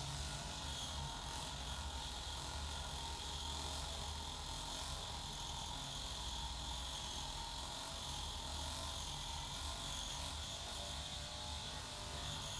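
A steady low hum with an even hiss over it, with no distinct cracks or strokes standing out.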